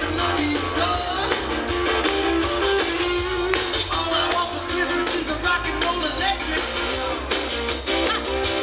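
Live rock band playing: electric guitars, drum kit and a singer, amplified.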